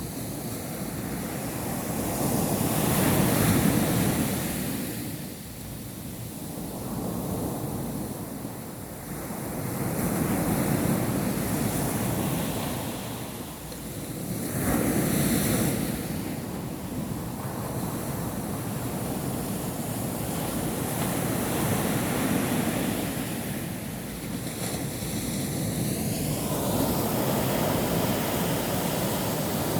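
Sea waves breaking on a beach: surf that swells and falls away every few seconds, with the biggest surges near the start and in the middle, and wind in the background.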